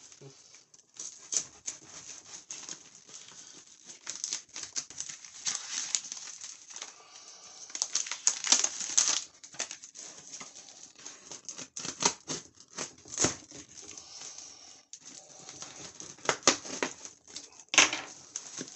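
Plastic stretch wrap crinkling and tearing as hands pick and pull at a wrapped cardboard box, with irregular sharp crackles throughout.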